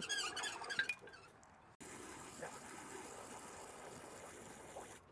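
A high, wavering animal call that ends about a second in; after a cut, a steady rush of running water, as from a hose filling an automatic livestock waterer.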